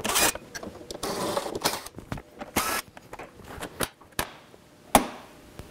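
A hand screwdriver backs the Torx screws out of a Can-Am Spyder F3's plastic front grille in short scraping turns. Then come a few small clicks, and about five seconds in one sharp snap as the grille's clips pop free.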